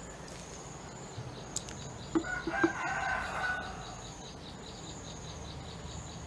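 A rooster crows once, starting about two seconds in and lasting about a second and a half, over a faint steady high insect trill. A few small knocks come just as the crow begins.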